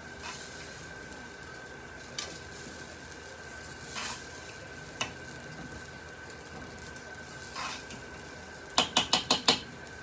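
Large metal spoon stirring and scraping Puerto Rican rice in a metal pot, once the cooking water has dried off, over a steady low sizzle. Near the end comes a quick run of about six clinks of the spoon against the pot.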